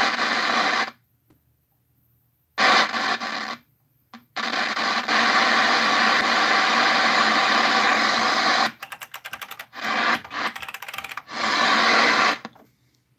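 White-noise static from a CRT television's speaker on an empty channel, cutting out abruptly and crackling back on several times. The scratchy, all-or-nothing dropouts are the sign of a dirty volume control.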